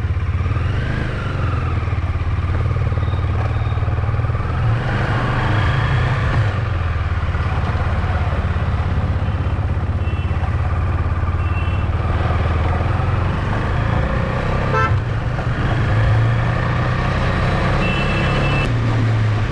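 A KTM Duke 250 single-cylinder engine running steadily while the motorcycle is ridden, its pitch shifting a couple of times with the throttle. Short vehicle-horn beeps sound several times.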